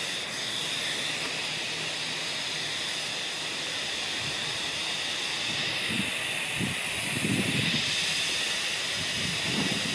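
Steam hissing steadily from a miniature live-steam locomotive's boiler as it stands in steam.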